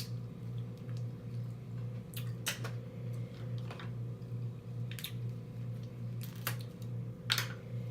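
Close-miked eating sounds of a person eating a seafood boil: about half a dozen wet smacks and clicks from chewing, spread several seconds apart over a steady low hum.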